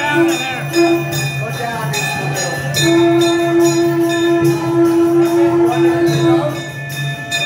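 Devotional chanting with jingling bells keeping a steady beat over a sustained drone, and a long held note through the middle.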